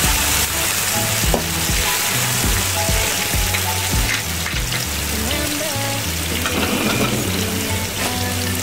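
Ground chilli, garlic and shallot paste sizzling in hot oil in a nonstick wok, stirred with a spatula at first and then left to fry.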